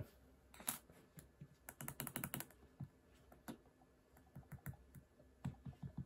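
Faint keystrokes on a mechanical keyboard: a quick run of key presses about two seconds in, with scattered single presses before and after.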